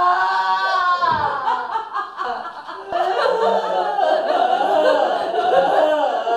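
A man laughing loudly in a theatrical, half-sung way: a held vocal note slides down about a second in, then comes choppy laughter.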